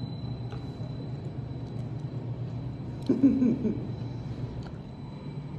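Underwater treadmill for dog rehabilitation running with a steady low hum and a faint high whine. About three seconds in, a short, wavering voice-like sound, the loudest thing here.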